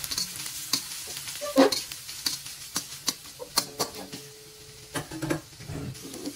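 Julienned ginger sizzling in hot oil in a wok, with metal tongs clicking and scraping against the wok as it is stirred.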